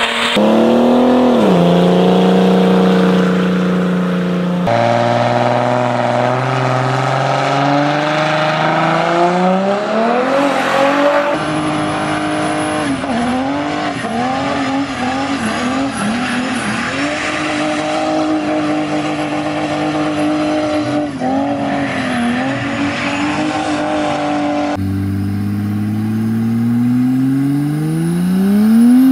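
Car engines held at high revs during burnouts, one car after another. The first is a diesel Mercedes-Benz W124 saloon, its note dropping and then holding steady. A BMW E34 saloon follows, its revs held with small dips. Near the end another diesel W124 accelerates, its engine note climbing steadily.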